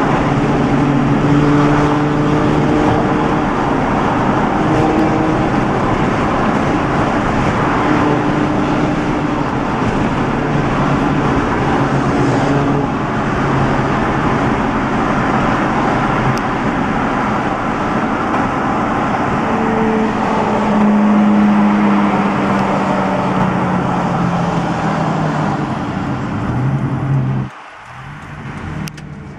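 Tuned Lamborghini Murcielago LP640's V12 engine running in traffic, its pitch rising and falling as it eases on and off the throttle, over heavy road and traffic noise. The level drops sharply near the end.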